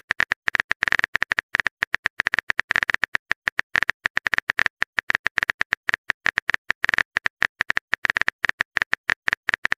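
Simulated phone keyboard tapping from a texting-story app: a fast, even run of short clicks, one per typed character, as a message is typed out.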